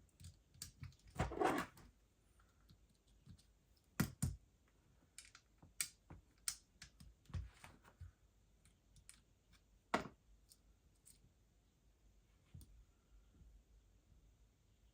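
Scattered light clicks and taps of small parts and tools being handled on a workbench, with a few sharper knocks, the loudest about four seconds in and again about ten seconds in, and a short rustle about a second and a half in.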